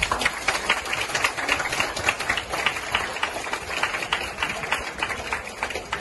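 A group of people applauding, many hands clapping at once. It starts suddenly and thins out near the end.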